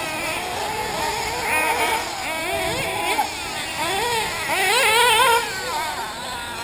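Several 1/8-scale nitro RC buggies racing, their small two-stroke glow engines whining in overlapping pitches that rise and fall as the throttles open and close. They are loudest about five seconds in.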